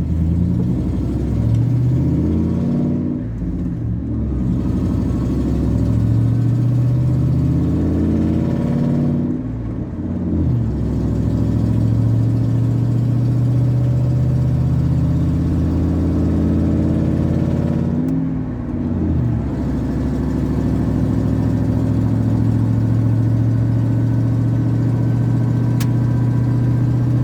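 A 1998 Dodge Dakota's 318 (5.2 L) V8 pulling away through the gears of its five-speed manual. The revs climb, then drop at each of three upshifts, and the engine settles into a steady cruise for the last several seconds.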